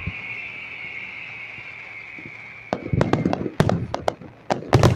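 Aerial fireworks: a steady high hiss fades out over the first couple of seconds, then from about three seconds in comes a rapid string of sharp bangs and crackles, loudest near the end.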